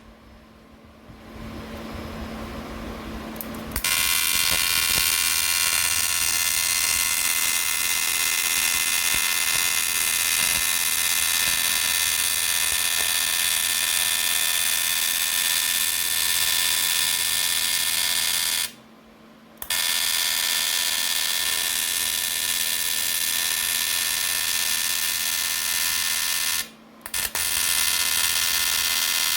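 A machine's electric motor running with a steady whine, quieter for the first few seconds and cutting out briefly twice, about two-thirds of the way through and again near the end.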